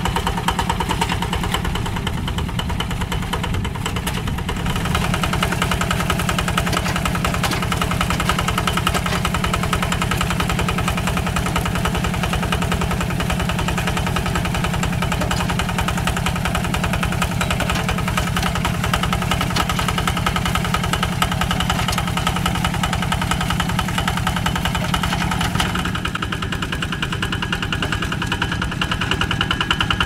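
Kubota single-cylinder diesel engine of a two-wheel walking tractor running steadily under load as it pulls a plough through wet paddy mud, with an even, rapid knock of firing strokes. Its tone shifts slightly a few seconds in and again near the end.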